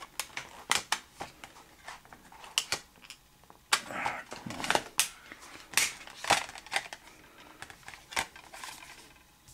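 Irregular sharp plastic clicks and snaps as a DVD is pried off the centre hub of a clear plastic disc tray, with a few short scrapes of handling in between.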